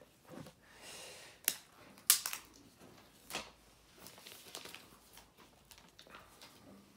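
Clear plastic shrink-wrap being torn open and peeled off a smartphone box, crinkling, with two sharp snaps of the tearing film about a second and a half and two seconds in, then more crackling as the film is pulled away.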